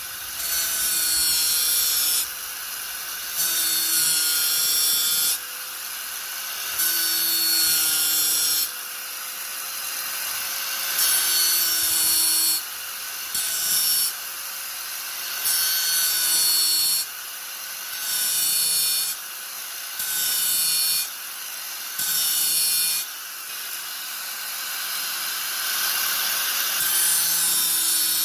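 Angle grinder running steadily at speed, its disc pressed into the work again and again, giving about a dozen loud grinding passes of one to two seconds each with the lighter motor whine between them.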